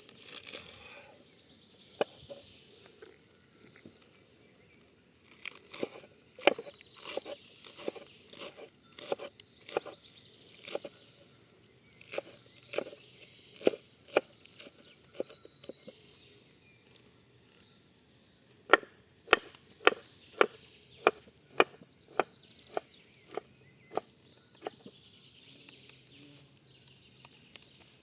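Knife chopping on a cutting board: runs of sharp strikes with pauses between them, at about two strikes a second in the evenest run.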